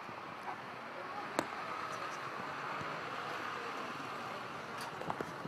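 Busy street ambience: a steady background noise of people and traffic, with a single sharp click about a second and a half in.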